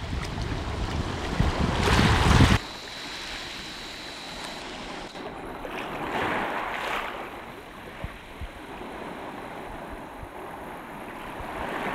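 Sea water washing against a rocky shore, with wind on the microphone. It is louder for the first two and a half seconds, then drops suddenly to a softer, steady wash.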